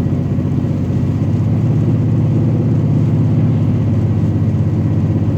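Car running steadily on a wet, rainy road, heard from inside the cabin: a low engine and road hum with tyre noise, swelling slightly midway.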